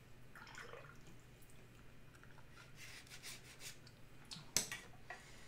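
A watercolour brush being swished in a jar of water, soft splashy rustles, with one sharp knock near the end.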